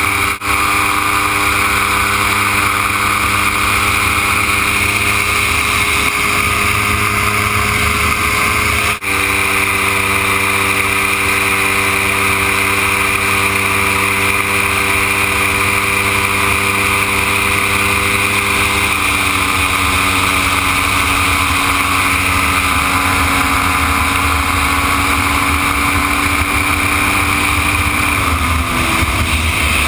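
Dominator gyroplane's engine and propeller running steadily in flight, heard from on board with a strong rush of wind. The engine note drops slightly about two-thirds of the way through and again near the end. The sound cuts out briefly twice, right at the start and about a third of the way in.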